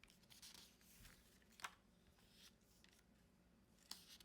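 Quiet paper rustling as pages of a disc-bound mini paper planner are turned, with two brief sharp page swishes, one about one and a half seconds in and one near the end.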